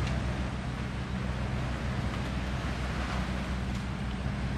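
An engine running steadily at a low, even pitch, with a hiss of wind or surf over it.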